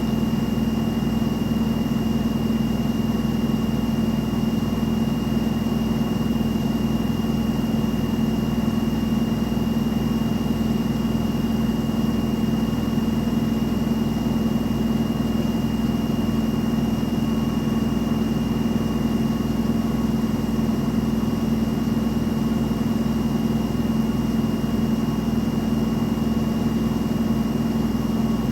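Front-loading washing machine on its spin cycle, the drum turning at a steady high speed with a constant hum and a thin high whine.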